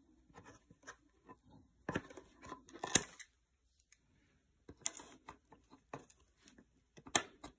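A kitchen knife scraping and sawing at the plastic strapping band around a bundle of wooden bed slats, with scattered clicks and taps of blade and slats. There are louder rasping strokes about two to three seconds in and again near five seconds.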